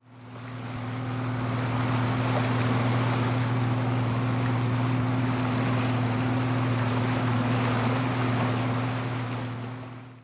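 Motor yacht's engine running with a steady low drone, under a hiss of wind and water. It fades in at the start and fades out near the end.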